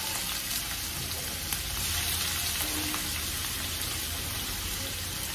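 Thinly sliced onions frying in hot mustard oil in a wok, a steady sizzle with faint scattered pops.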